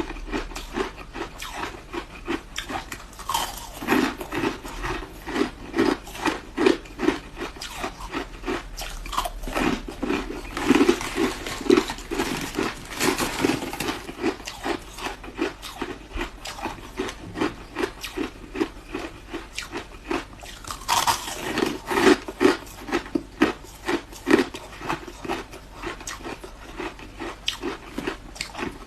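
A person chewing and crunching ice close to the microphone, a rapid, continuous run of crisp crunches, several per second.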